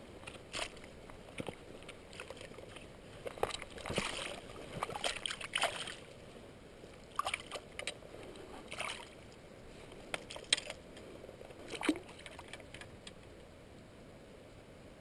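Irregular splashing and sloshing of water as a hooked sea-run cutthroat trout thrashes at the surface close in, being played to the landing net. The splashes stop a few seconds before the end.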